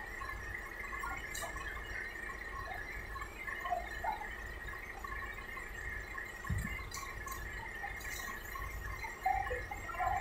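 Cargo-yard background: a steady low rumble under a constant high-pitched hum, with scattered faint knocks and clicks from cargo handling and one dull thump about six and a half seconds in.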